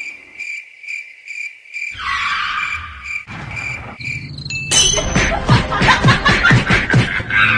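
Cricket chirping, a steady high pulse about three times a second. About five seconds in, a louder, busier sound cuts in over it and becomes the loudest thing heard.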